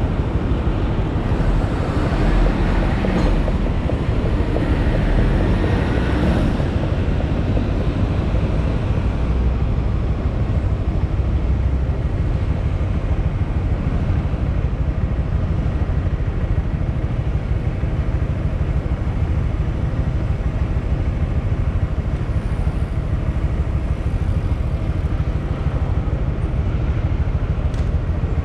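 Honda MSX 125 being ridden, its 125cc single-cylinder engine running under a steady low rumble of road noise, with a louder, brighter passage over the first six seconds or so.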